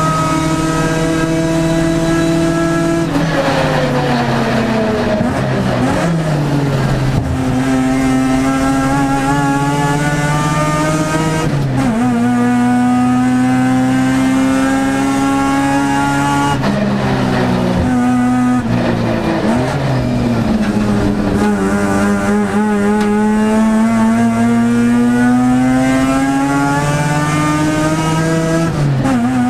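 Mazda RX-7's rotary racing engine heard from inside the cabin under race load. It holds a steady high note, drops in steps through downshifts about three seconds in and again around seventeen seconds, and climbs slowly as it accelerates in between, with a gear change near twelve seconds and another near the end.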